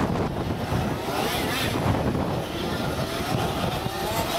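Two-stroke petrol engines of large-scale radio-controlled off-road buggies racing, their revs rising and falling as they accelerate and brake round the track, with wind rumbling on the microphone.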